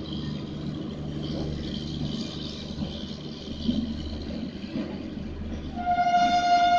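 Steady rumble and hum of a WAP-7 electric locomotive and train at a station, with a faint whine. About six seconds in, a loud sustained horn-like tone starts and holds.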